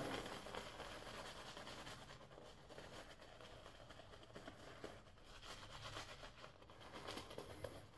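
Faint brushing of a boar-bristle shaving brush working soap lather over stubble, soft and irregular with small scratchy ticks.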